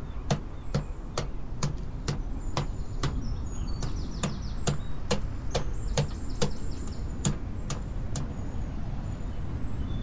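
Rhythmic knocking, about three strikes a second, with birds chirping.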